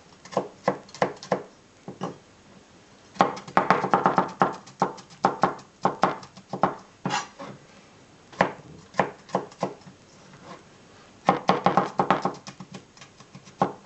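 A sharp kitchen knife chopping garlic cloves on a chopping board. Single knocks alternate with fast runs of chopping, about four seconds in and again near the end, with short pauses between.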